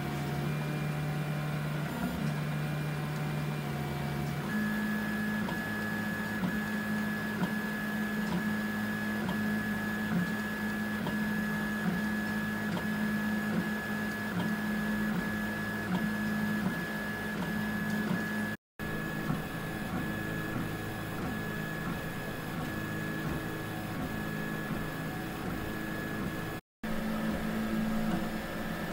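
Bad Robin open-source 3D printer running a print and laying down its first layer: its stepper motors give a steady whine whose pitch steps up about four seconds in as the moves change. The sound cuts out briefly twice.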